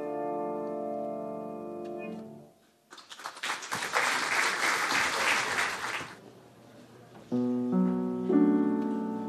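A Steinway grand piano's closing chord rings and dies away, then the audience applauds for about three seconds. Near the end the piano starts playing again, single notes over held chords.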